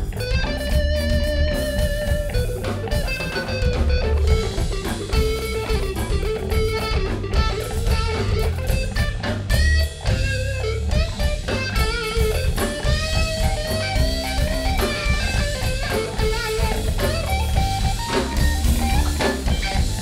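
Live bluesy rock band playing an instrumental passage: an electric guitar lead with wavering held notes over bass guitar and a drum kit.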